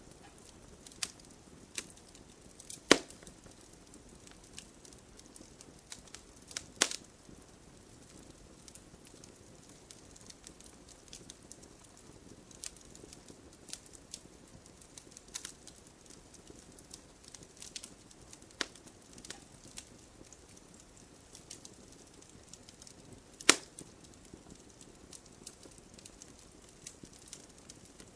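Campfire crackling: a faint steady burning hiss with frequent small snaps and a few loud pops, the sharpest about three seconds in, another near seven seconds and one late on.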